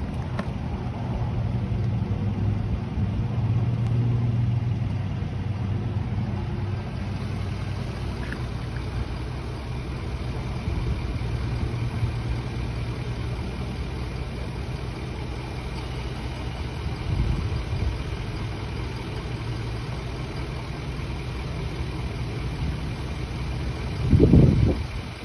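Steady engine drone with a low hum, and a brief louder rumble near the end.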